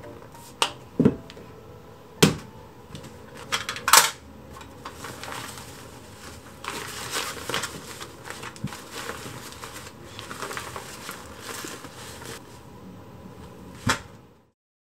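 Plastic bento lunchbox being closed, with several sharp clicks and knocks of the lid, then the soft rustle of a quilted fleece lunch wrap being folded around the box, and one more knock near the end.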